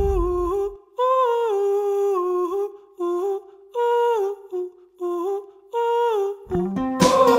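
Music: a single wordless melody line in short phrases with sliding notes, with a deep boom dying away in the first second. A fuller guitar-backed song comes in near the end.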